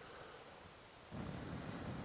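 Low, gusty rumble of wind buffeting the microphone, coming in suddenly about a second in.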